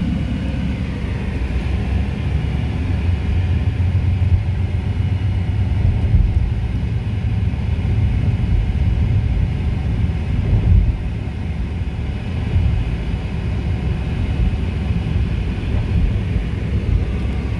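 A car in motion heard from inside the cabin: a steady low rumble of tyre and road noise with the engine under it.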